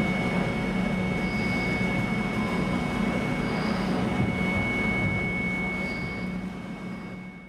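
Steady machinery drone with a constant high-pitched whine over a low hum, fading out near the end.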